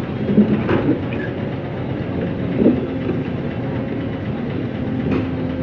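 Heavy diesel machinery running steadily, with a few short metallic clanks about half a second in, near the middle and near the end.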